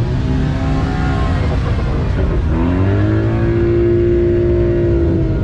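Sports car engines as cars drive out past the crowd: one engine passes early on, then another revs up about two and a half seconds in and holds a steady high rev until near the end.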